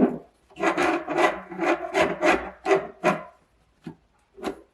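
A cloth rag rubbed and wrapped around an iPad to hold it steady: a quick run of rubbing strokes for about three seconds, then a couple of short knocks near the end.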